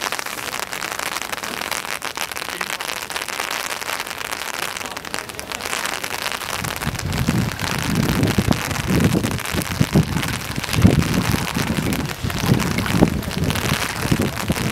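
Rain falling steadily onto floodwater covering a street, an even hiss. From about halfway through, irregular low rumbles of wind buffet the microphone.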